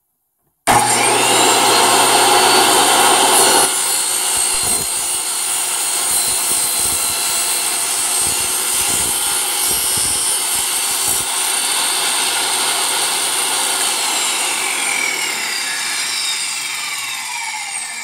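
Table saw switched on about a second in, running while a cherry workpiece on a sled and bevel jig is pushed through the blade for a 12-degree bevel cut. Near the end it is switched off and the blade winds down, its pitch falling.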